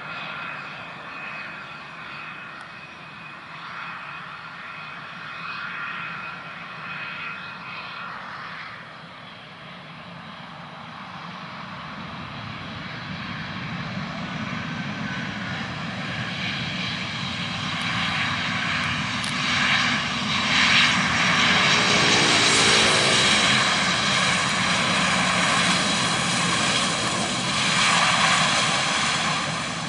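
Airbus A320's CFM56 turbofan jet engines running after landing, a steady whine that grows much louder over the second half as the airliner rolls past close by. A brief falling tone comes about three-quarters of the way through.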